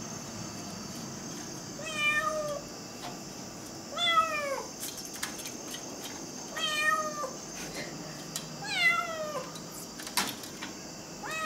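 A cat meowing again and again: four separate meows about two seconds apart, each falling in pitch, with a fifth starting at the very end.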